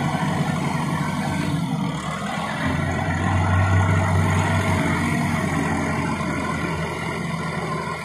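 Tractor diesel engine running at high revs while its front loader lifts a bucket of soil, louder for a couple of seconds about three seconds in.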